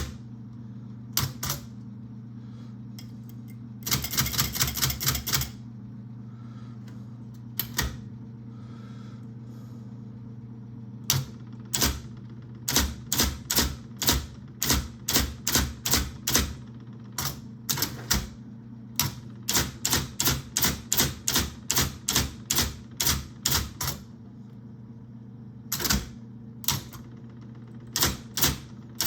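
IBM Selectric I electric typewriter typing, its typeball striking in sharp clicks over the steady hum of its running motor. A fast burst of repeated strikes comes about four seconds in, and a long run of evenly paced keystrokes follows from about a third of the way through.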